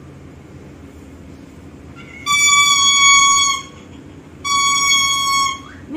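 A shrill, steady high tone sounding in blasts of just over a second each: two blasts about two and four and a half seconds in, with a third starting at the end.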